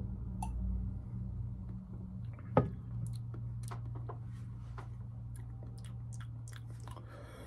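Gulping from a glass soda bottle, then a single knock about two and a half seconds in as the bottle is set down on the table, followed by a run of small lip-smacking mouth clicks as the soda is tasted. A steady low hum sits underneath.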